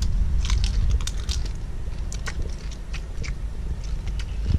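A person biting and chewing crunchy food close to the microphone: a scatter of short sharp crunches and clicks over a steady low rumble.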